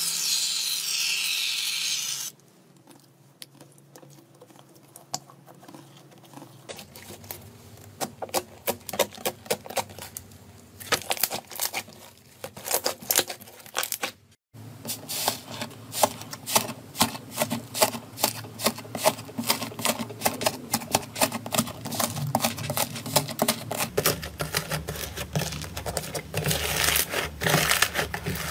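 An aerosol can of shaving foam hisses for about two seconds. Then slime is squeezed and kneaded by hand, giving a long run of small sticky clicks and crackling pops.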